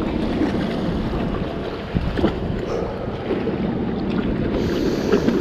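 Wind buffeting the microphone over the wash of sea waves, a steady low rumble with a few brief knocks.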